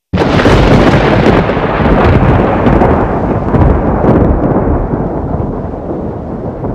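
A thunderclap that breaks out suddenly and rumbles on for several seconds, slowly fading, over heavy rain.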